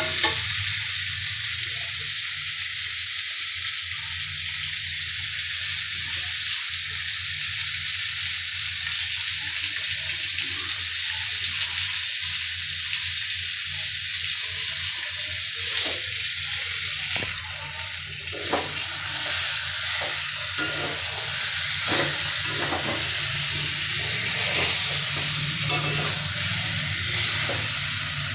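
Chicken and potato pieces sizzling as they roast in masala in a steel kadai, with a steel spatula scraping and clicking against the pan now and then, more often in the second half.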